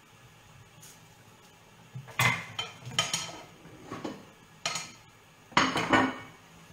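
Kitchen utensils clinking and knocking against cookware: about half a dozen sharp, irregular strikes with a short metallic ring, starting about two seconds in, the loudest pair near the end.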